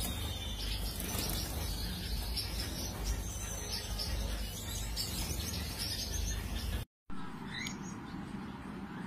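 Finches chirping and calling, a busy mix of short high chirps over a steady low rumble. The sound drops out briefly about seven seconds in, then the chirps go on against a quieter background.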